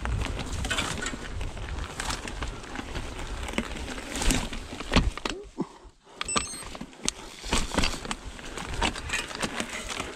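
Devinci Troy 29er mountain bike ridden along a dirt singletrack: tyres on dirt, with a steady run of clicks and rattles from the bike. The noise drops away briefly just past the middle.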